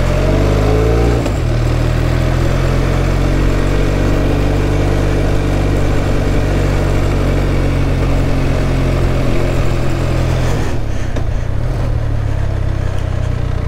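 Benelli TRK 502 parallel-twin motorcycle engine under way. The revs climb in the first second as the bike pulls off, hold steady, and change note about eleven seconds in.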